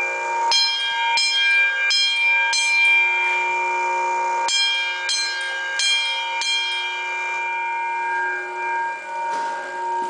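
Autocall 10-inch single-stroke fire alarm bells striking in coded groups, driven by the panel's motor-turned code wheel: two groups of four strokes about two-thirds of a second apart, with a pause between. On this last round of the code the ringing then fades away and stops near the end.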